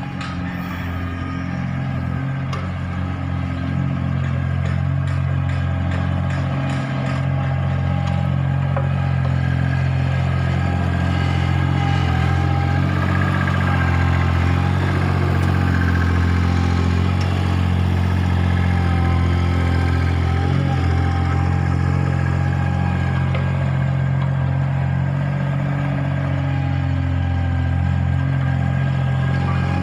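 Vehicle engine idling steadily with an even, low hum.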